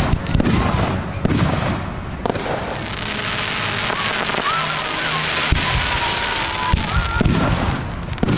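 Aerial fireworks shells bursting, a quick run of booms in the first two seconds and more just before the end, with a steady crackling hiss of burning stars in between.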